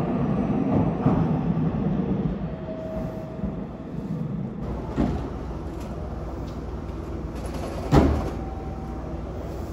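Meitetsu 2000 series μSKY electric train rolling to a stop at the platform, its rumble fading over the first two or three seconds. Quieter platform noise follows, with a faint steady tone, a light click about five seconds in and a sharp clunk about eight seconds in.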